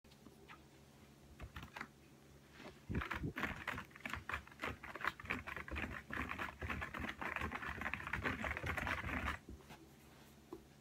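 Cat scratching with its claws: a rapid, dense run of scratchy strokes that starts about three seconds in and stops about a second before the end, after a few faint scratches.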